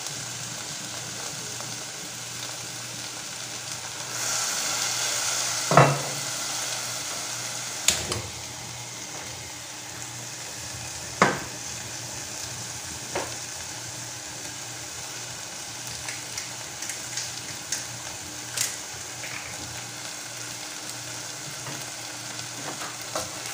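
Diced red onion, garlic and bay leaves sizzling steadily in oil in a pan. The sizzle swells for a couple of seconds about four seconds in, and a few sharp clicks break through now and then.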